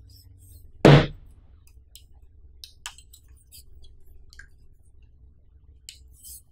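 Handling noise from a BEIKE QZSD-999H tripod's horizontal centre column and head: a loud thump about a second in, then a scatter of light clicks and taps as the column, clamp and pan handle are gripped and moved.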